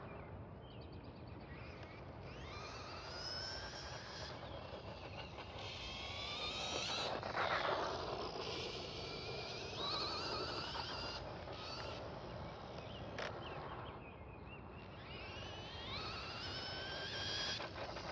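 WLToys L202 Pro brushless RC buggy's electric motor whining, rising in pitch as it accelerates, in about four runs, loudest about seven seconds in.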